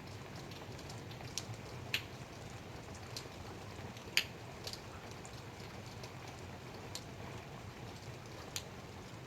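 Light rain: a steady soft hiss with single drops ticking sharply on a surface at irregular intervals, the loudest about two and four seconds in.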